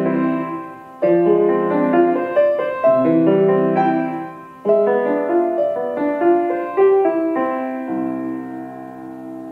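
Solo piano played in chordal phrases, ending with a final chord that is struck about eight seconds in and left to ring away.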